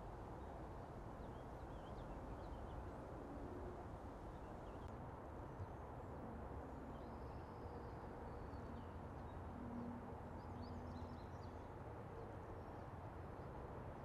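Quiet outdoor ambience: a steady low background rumble with faint, scattered high chirps from small birds, several close together about ten seconds in, and one faint click a little after five seconds.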